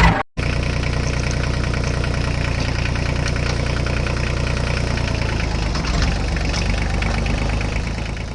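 Small engine of a miniature DIY tractor running steadily with an even, rapid beat, fading out near the end.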